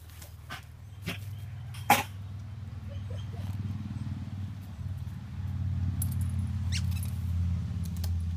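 A dog making a low, pulsing growl-like rumble that grows louder about halfway through, with a couple of sharp clicks in the first two seconds.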